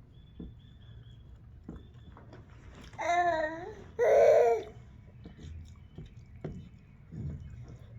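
Baby babbling: two short high-pitched vocal sounds about three and four seconds in, the first wavering up and down in pitch, with a few faint clicks between.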